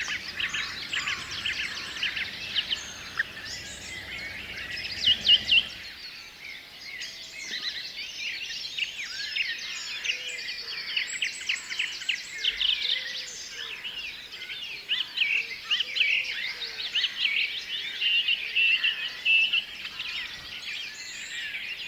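Many small birds chirping and trilling at once, a dense overlapping chorus of short calls. A low rumble runs underneath and stops abruptly about six seconds in.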